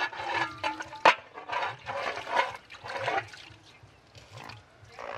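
Dishwater splashing and sloshing in basins and pots as dishes are washed by hand, in irregular splashes, with a sharp clink of a dish about a second in.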